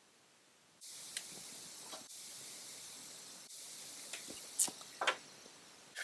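A few faint clicks and rustles of small wires and a plastic-cased circuit board being handled, over a steady background hiss that begins about a second in.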